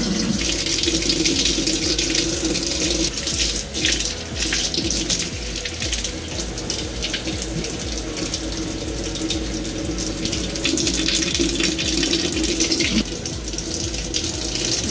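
Tap water running from a kitchen faucet through a turbo exhaust manifold and pouring out into a stainless steel sink: a steady, continuous rush and splash.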